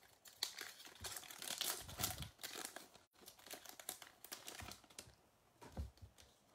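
Football trading-card pack wrappers being torn open and crinkled: irregular crackling and tearing that is dense for about five seconds, then a few faint rustles near the end.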